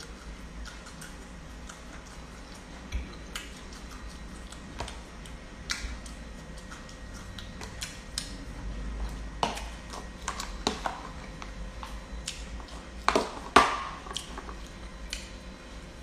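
Chopsticks and a metal spoon tapping and scraping against plastic food containers while eating: scattered light clicks, with a louder cluster of knocks about three-quarters of the way through.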